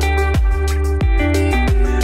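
Electronic background music with a deep bass line, held synth notes and a steady beat, its kick drum striking about three times in two seconds.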